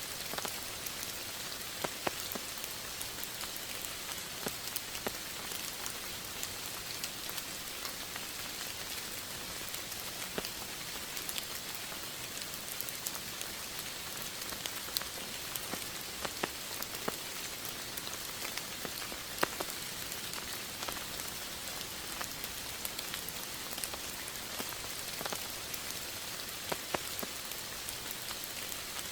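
Steady rain falling, an even hiss with scattered close drops striking a surface as distinct light taps.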